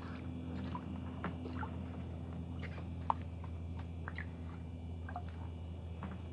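Small splashes and water droplets plinking in an ice-fishing hole as a fish thrashes at the surface around a jig, with a sharp click about three seconds in, over a steady low hum.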